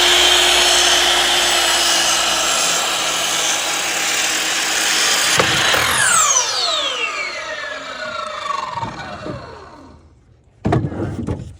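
Electric power saw running and cutting wood, then switched off about five seconds in, its motor and blade winding down in a long falling whine. A short noisy burst near the end.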